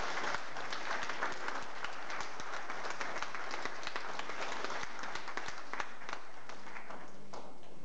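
Wedding guests applauding, a dense patter of many hands clapping that thins out near the end.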